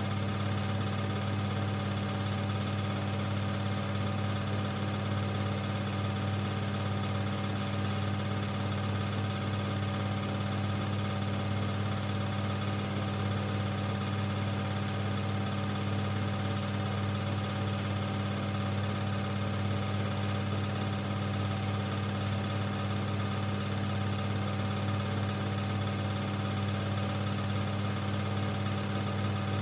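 Super 8 film projector running with a steady motor hum and whir.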